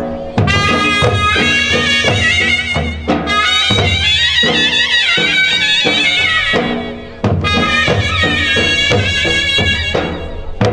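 Ras folk-dance music: an ornamented, wavering reed-wind melody over a steady drum beat, played loud in three phrases broken by short pauses.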